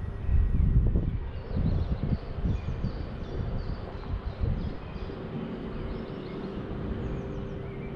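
Wind buffeting the microphone in uneven low gusts, strongest in the first second or so, over a steady faint hum, with small birds chirping in short repeated notes.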